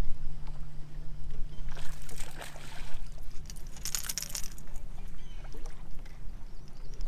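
A hooked bass splashing and thrashing at the surface about two seconds in, then again as it is swung out of the water around four seconds. Underneath is a steady low hum and low rumble.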